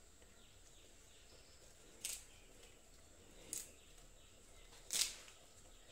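Fresh curry leaves being plucked from their stems by hand: three short, crisp rustles about a second and a half apart.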